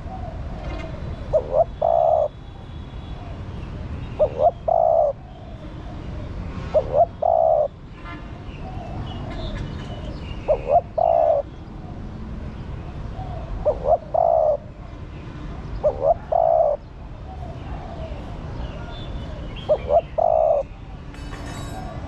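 Female spotted dove cooing: two or three quick coos and then a longer final coo, a phrase repeated seven times about every two to four seconds.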